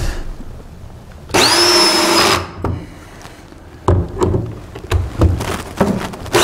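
Cordless drill driving screws to fasten a chicken-door frame to a wooden coop wall. The motor spins up and runs steadily for about a second, a few knocks and clicks follow as the drill is repositioned, and the motor starts again at the very end.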